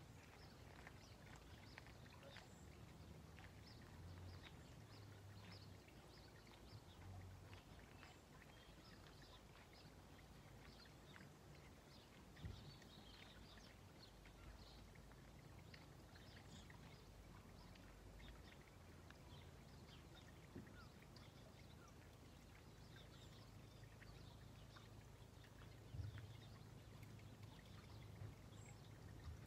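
Near silence: faint outdoor ambience with a low rumble and scattered faint chirps. A soft thump comes about halfway through and again near the end.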